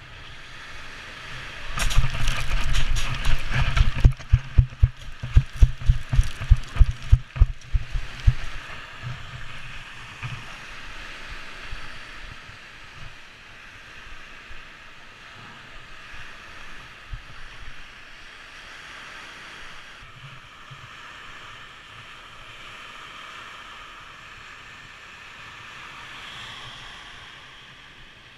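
Wind rushing over the microphone during a low glide to the beach, then a quick run of heavy thumps, about two to three a second, as the paraglider pilot touches down and runs out the landing on a pebble beach. After that, steady wind and lake waves washing on the shore.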